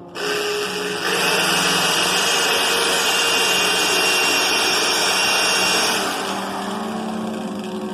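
Electric drill running under load, drilling out a rivet on a Weber Smokey Joe grill's vent damper, with a steady whine. It gets louder about a second in and eases off near the end.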